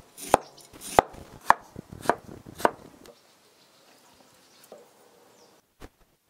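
Chinese cleaver slicing through a kiwi fruit onto a round wooden chopping board: five crisp chops about half a second apart, then two light knocks near the end.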